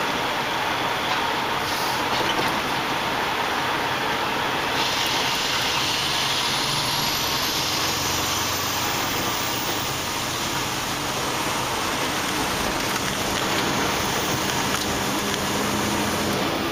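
Semi-truck engine running under way with steady road noise as the truck is driven.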